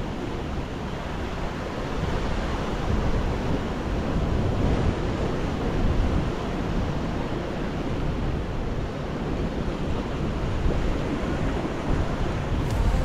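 Sea surf washing against a rocky shore in a steady, surging wash, with wind buffeting the microphone.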